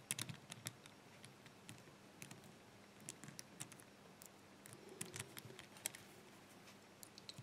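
Faint, irregular small metal clicks and ticks of a lock pick and tension wrench working the pins inside a Brinks 5-pin brass padlock, a few more of them near the start and about five seconds in.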